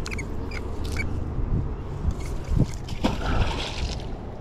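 A neodymium fishing magnet on a rope splashing into shallow river water about three seconds in, after a few light clicks.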